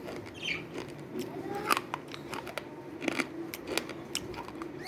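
Slate pencils being bitten and chewed: irregular sharp, crisp crunches and snaps, the loudest a little under two seconds in and twice between three and four seconds in.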